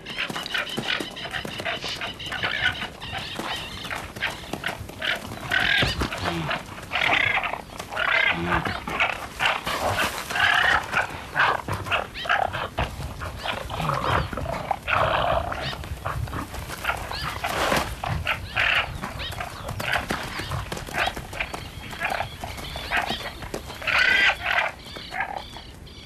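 Male guanacos fighting and chasing one another, giving many short, shrill calls one after another, with scuffling.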